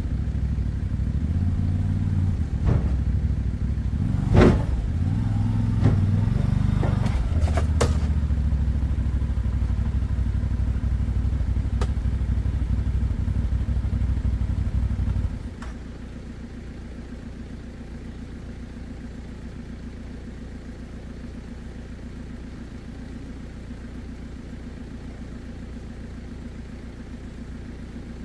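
CF Moto 850XC ATV's V-twin engine running at low revs, rising and falling as the quad is driven onto a metal trailer, with several sharp clanks from the trailer between about three and eight seconds in. The engine is shut off about fifteen seconds in, cutting out suddenly and leaving a quieter steady low hum.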